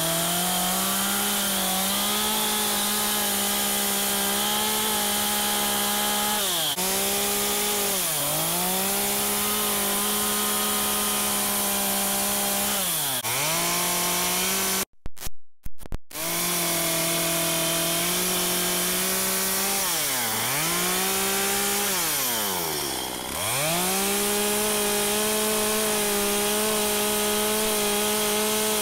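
Two-stroke Stihl chainsaw running at high revs while carving cuts are made into a log. Its pitch sags several times as the chain bites into the wood and then climbs back, with a brief break in the sound about halfway through.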